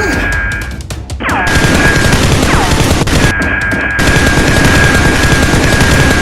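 Rapid bursts of gunfire sound effects over action background music with a steady high tone, and two falling whistle-like sweeps early on.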